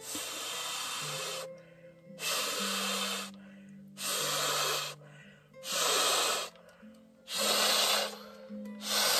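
A man blowing breaths by mouth into the valve of an inflatable camping pillow to inflate it: about six long, hissing exhalations of a second or so each, with short pauses between them to draw breath. Soft background music plays under it.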